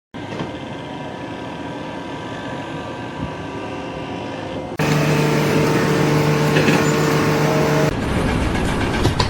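Heavy engines running steadily, with a louder, steady droning tone about five seconds in that cuts off near eight seconds, followed by rougher machine noise.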